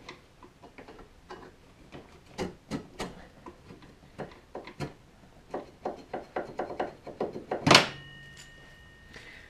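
Scattered metallic clicks, taps and knocks of hands and tools working worn brake pads out of a snowmobile's brake caliper, with one loud clank about three-quarters of the way in, followed by a short steady ringing tone.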